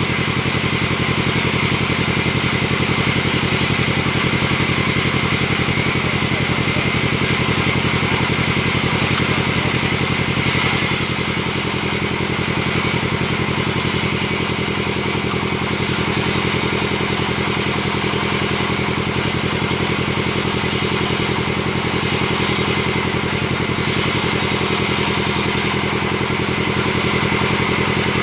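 Band sawmill running steadily. From about ten seconds in, a brighter hiss comes and goes over the steady machine sound.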